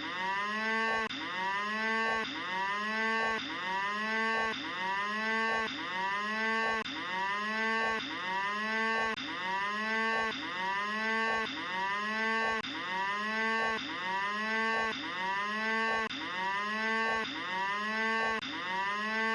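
Cattle mooing: the same short moo repeats about once a second in an identical pattern, like a looped sound effect.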